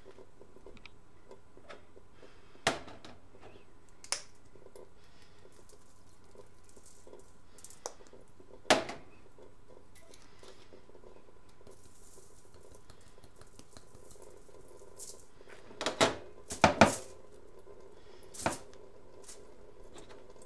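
Scattered sharp clicks and knocks of kitchen items being handled and set down during food preparation, over a faint steady hum. A cluster of louder knocks comes about three-quarters of the way through.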